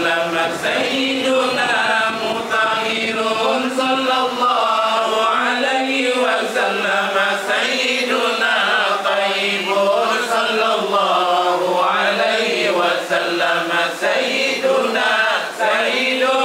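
A man chanting an Arabic devotional recitation into a microphone, in long melodic lines with many sliding, ornamented turns and no break.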